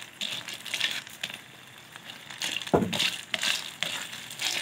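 Freshwater snails in their shells being stirred with a spatula in a steel wok: an irregular clatter and scrape of shells against the pan, with one louder knock a little past halfway.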